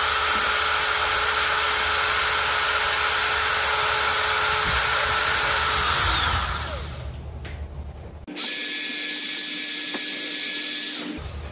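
Cordless drill with a 3.2 mm bit running steadily as it reams out the slotted screw holes of a plastic roller-lever micro switch. It winds down about six seconds in, then runs again for about three seconds near the end, starting and stopping suddenly.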